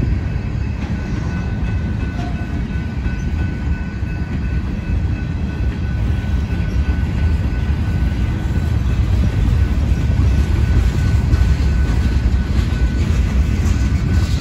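Freight train cars, covered hoppers and tank cars, rolling past close by with a steady, loud rumble of steel wheels on rail and a faint high steady tone over it.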